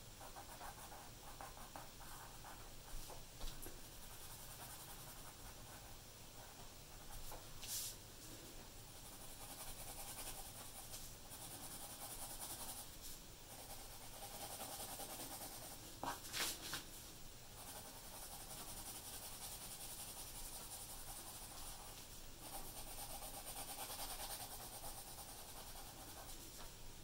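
Graphite pencil scratching on paper in continuous shading strokes, faint, with a few short louder scrapes, the clearest about 8 and 16 seconds in.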